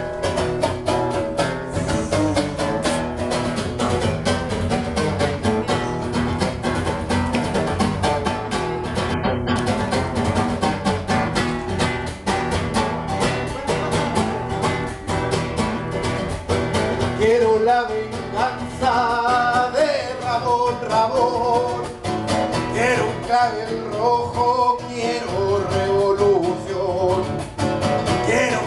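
Acoustic guitar strummed in a steady rhythm as a song begins; a man's voice starts singing along with it a little past the halfway point.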